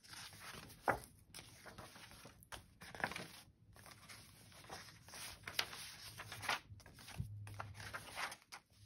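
Paper pages of a handmade junk journal being turned and smoothed by hand: a string of quick paper rustles and flaps as the pages flip over.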